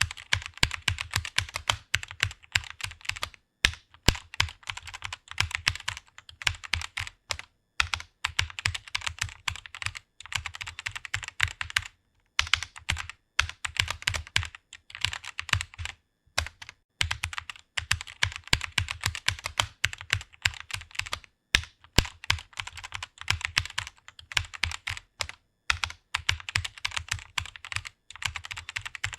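Fast typing on a computer keyboard: rapid runs of keystroke clicks, broken by a brief pause every few seconds.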